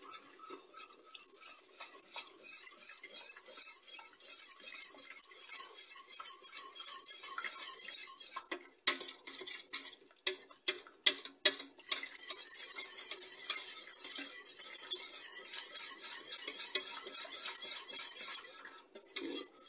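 Wire whisk scraping and clinking quickly against a stainless steel saucepan, beating a butter-and-flour roux with milk into white sauce. A run of louder sharp knocks comes about nine to twelve seconds in.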